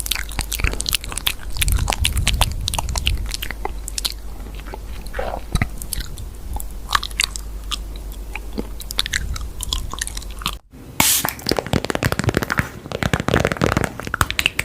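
Close-miked crunching and chewing, with many crisp bites and cracks. The sound cuts off abruptly about ten and a half seconds in, then resumes denser.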